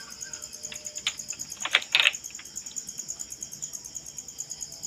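A few light clicks and taps of multimeter test probes being set on the amplifier's circuit board, the two loudest close together about two seconds in. A steady high-pitched chirping continues behind them.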